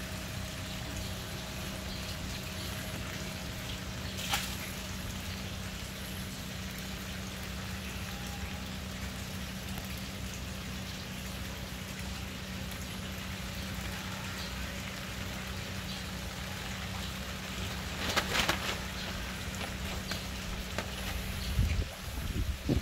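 Steady low machine hum over an even hiss, with a sharp click about four seconds in, a brief louder rustling patch around eighteen seconds, and a few low thumps near the end.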